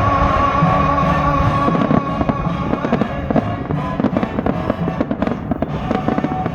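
Fireworks going off in quick succession, a dense run of bangs and crackles that starts about two seconds in, over loud show music.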